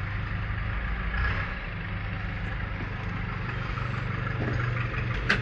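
Steady low mechanical hum of a running motor, with a sharp click near the end.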